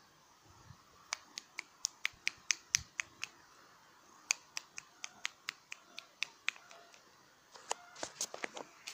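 A rapid series of sharp clicks, about five a second, coming in three runs with short pauses between them.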